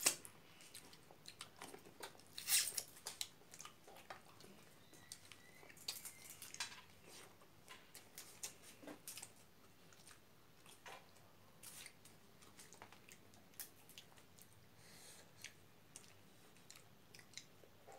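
Quiet, close chewing and lip-smacking of people eating rice and pork curry by hand: an irregular run of short wet clicks and smacks.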